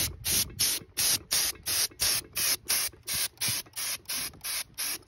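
Glaze spray gun spraying ceramic glaze in short, even spurts of hiss, about three a second, as the tanks are coated.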